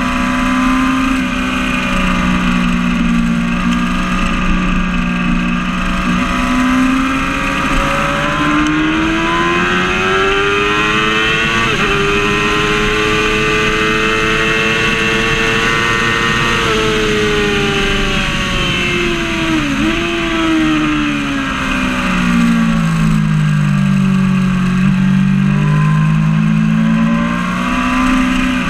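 Yamaha R6's 600cc inline-four engine heard from on board at track speed, climbing in pitch as it accelerates, with a short break in the note about halfway through. It falls away as the bike slows and rises again near the end, with wind rushing over the microphone.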